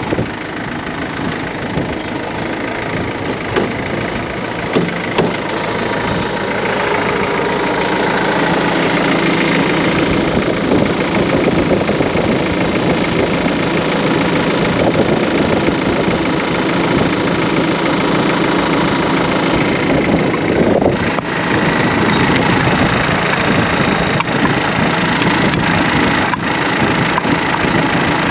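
Backhoe loader's diesel engine running steadily close by, getting a little louder over the first several seconds.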